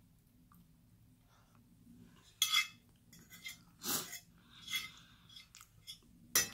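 A metal fork clinking and scraping against a plate a few times, with chewing and breathing between. There is a sharp clink near the end.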